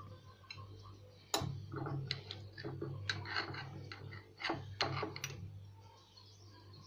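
A metal fork clicking and scraping against a glass jar while pickled lemons are lifted out of it: a handful of sharp, separate clicks over a low steady hum.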